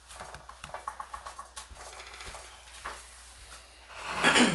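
Dry hard white wheat berries rattling in a bowl as it is handled: a quick run of small ticks. Near the end comes a louder scrape as the bowl is drawn across the wooden board.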